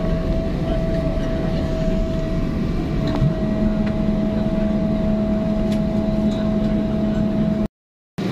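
Airliner cabin noise on the ground: a steady rumble of the jet engines and the aircraft rolling, with a steady whine and a lower hum that comes in about three seconds in. The sound drops out briefly near the end.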